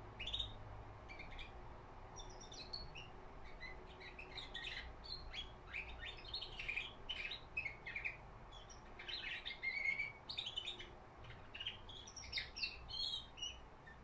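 Caged pet songbird singing a rambling, twittering song of short high chirps and trills, a young male starting to practise his song.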